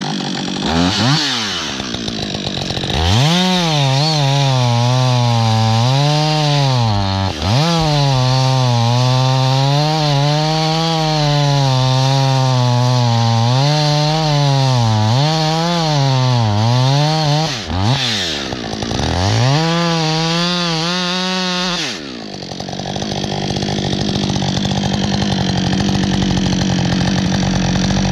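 Two-stroke chainsaw cutting into the base of a conifer trunk. The engine's pitch rises and falls as it labours in the cut, dipping twice and revving back up, then about six seconds before the end it drops to a steady idle.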